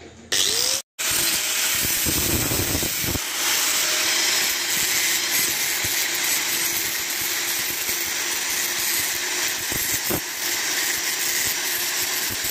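Handheld angle grinder starting up about a third of a second in, then running steadily with a loud grinding hiss as a metal spoon is held against its disc to shape it.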